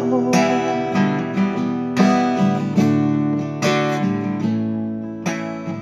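Seagull acoustic guitar strummed in a steady rhythm, a chord about once a second, ringing between strokes: an instrumental stretch between sung lines of a folk song.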